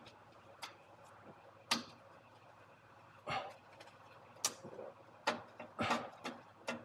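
Scattered light metallic clicks and taps, about seven at irregular intervals, from a gloved hand fitting parts onto a replacement heat exchanger under an air-cooled VW. The sharpest click comes a little under two seconds in.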